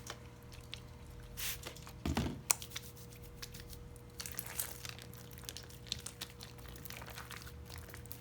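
Textured slime full of small square chip-like pieces being squeezed and kneaded by hand, giving many small irregular crackles and clicks.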